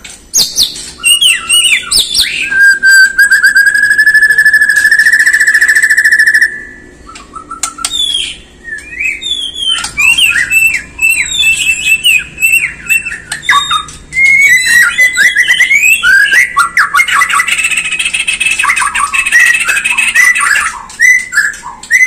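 White-rumped shama (Bornean murai batu) singing: a long buzzy trill held for about four seconds, a few seconds in, then after a short lull a dense run of quick, varied whistled phrases and chatters.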